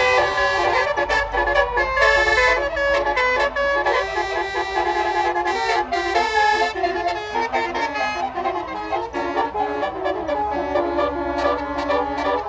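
Bus musical air horn (basuri 'telolet' horn) playing a fast melody of horn notes, with a bus engine's low rumble underneath in places.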